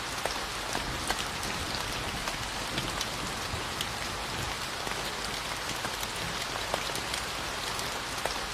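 Steady rainfall: an even hiss of rain on a surface, with scattered individual drops ticking through it.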